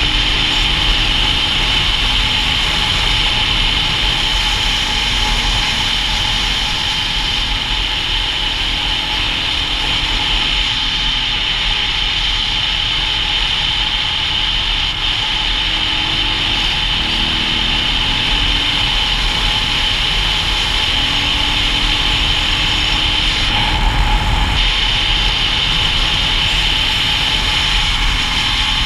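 Dual-sport motorcycle under way: a steady rush of wind over the camera microphone, with the single-cylinder engine faintly underneath, its pitch shifting now and then as the revs change.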